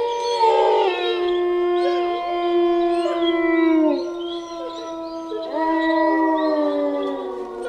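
Wolves howling: several long howls overlapping at different pitches, some held steady while others slide down, with a fresh howl rising in about two thirds of the way through.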